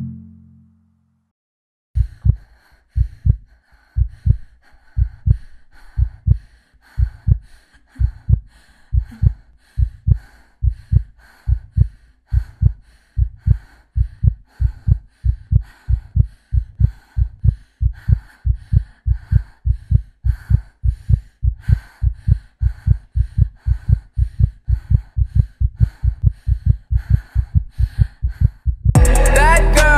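Heartbeat sound effect: paired low thumps that begin about two seconds in and gradually quicken. Music cuts back in just before the end.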